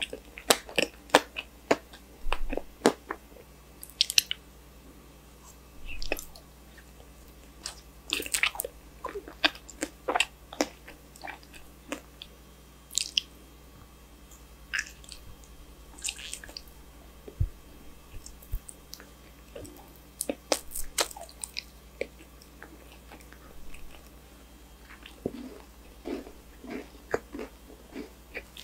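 Close-miked mouth eating sounds: bites and chewing with irregular sharp crunches and wet mouth clicks, several in quick clusters, then brief pauses.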